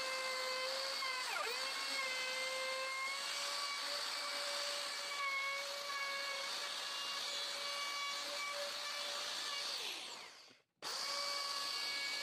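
Handheld plunge router running at full speed with a steady high whine. Its pitch dips briefly about a second in as the bit bites into the wood. It winds down near the end, then cuts back in already running.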